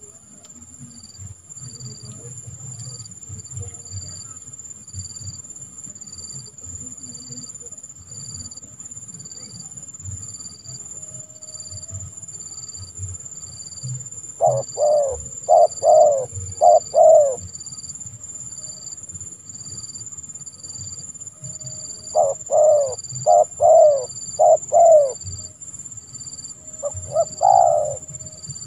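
Spotted dove cooing in two phrases of about five coos each, one about halfway through and one later, with a short third phrase near the end. A steady high insect buzz with evenly pulsing chirps runs underneath.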